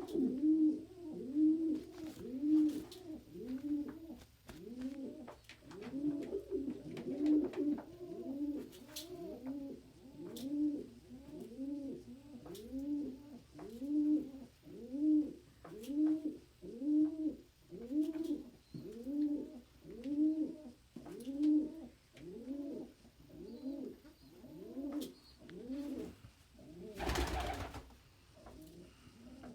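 Domestic pigeon cooing over and over in a steady rhythm, about one and a half coos a second. Near the end there is a brief loud rustle.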